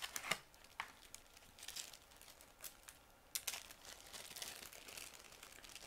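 Faint, scattered crinkling and rustling of an action figure's plastic and cardboard packaging being opened by hand.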